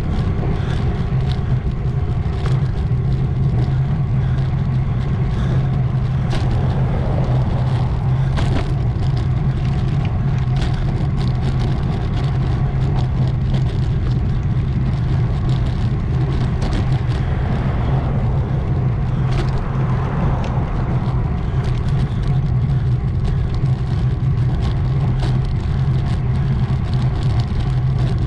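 3T Strada road bike riding along a paved road, heard through a handlebar-mounted GoPro: a steady, loud rush of wind and tyre noise, with scattered small clicks and rattles.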